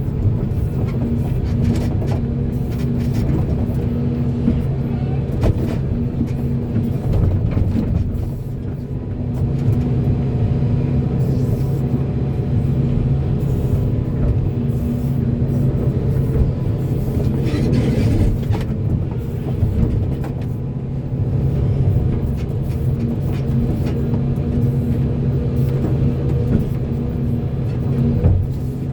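Volvo excavator's diesel engine running steadily under load as it digs and loads soil, a continuous low drone. Short clanks come through here and there.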